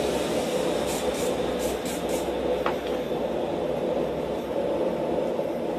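Steady rushing roar of the shop's forge running, with a few faint clicks and one light metallic clink about two and a half seconds in as the hot bar is handled in tongs at the guillotine tool.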